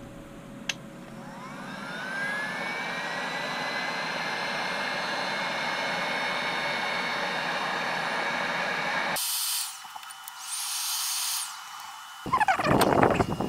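Handheld heat gun switched on with a click, its fan spinning up into a steady high whine with a rush of blown air, aimed at a drone's soldered battery connector. About nine seconds in the sound cuts off abruptly, and near the end there is loud crackling and rustling.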